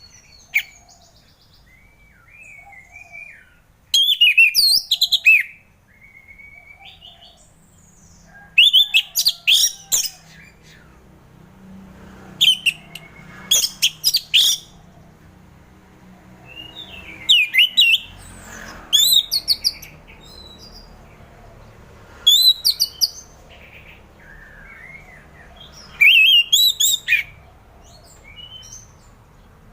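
Orange-headed thrush singing: loud phrases of quick, varied whistled notes, one every three to four seconds, with softer, lower twittering notes in the gaps.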